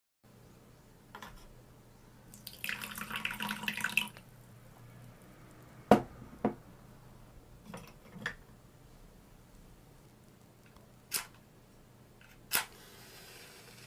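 Small kitchen handling sounds from a miniature cooking set: a short burst of pouring into a tiny cast-iron pot, then two light knocks and a few small clicks. Near the end a match is struck on a matchbox, a sharp scratch followed by a brief hiss as it flares.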